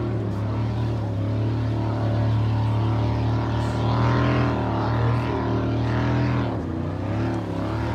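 Jet ski engine running, with a steady low hum; its pitch rises and falls between about four and seven seconds in as it speeds past.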